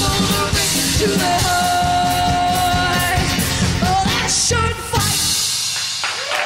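Live band with drums, guitars and women's voices singing, one voice holding a long note; the song ends about five seconds in and applause starts.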